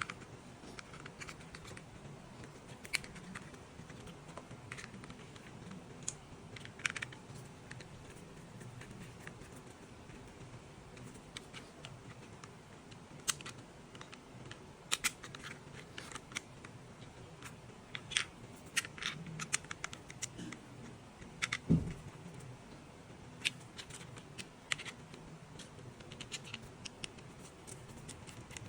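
Scattered light clicks and taps of small plastic toy parts being handled and fitted together, irregular and more frequent in the second half, with one heavier knock about two-thirds of the way through.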